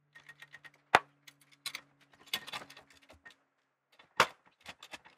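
Metal clinks, rattles and knocks from a jack and its long lever handle being worked, with two sharp knocks, about a second in and again near the end, over a faint steady low hum.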